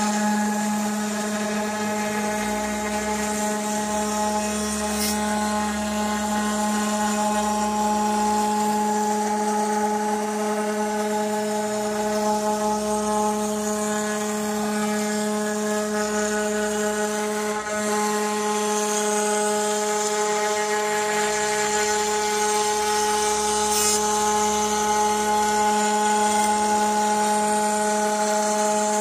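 A 4 kW water-cooled CNC router spindle running at a steady whine while a V-bit engraves a wooden sign, with the hiss of the cutting under it.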